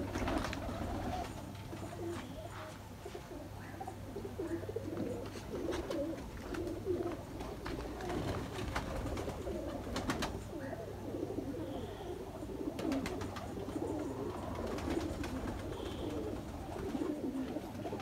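A flock of domestic pigeons cooing, many low coos overlapping in a steady chorus.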